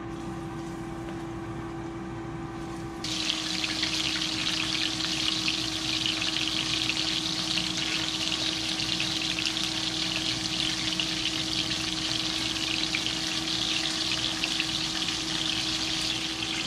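Coated puffer fish pieces frying in hot oil in a cast-iron skillet: a dense, crackling sizzle that starts abruptly and grows loud about three seconds in, then holds steady. A steady low hum runs underneath.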